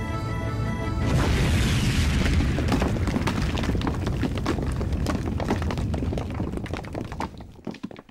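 Cartoon volcano eruption: a loud deep rumble sets in about a second in, thick with clattering of falling rocks, then thins out and fades near the end.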